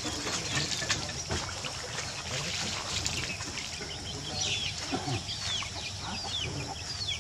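A bird calling in a run of short, high, falling notes, about two a second, starting about halfway through, over low rustling and scattered clicks.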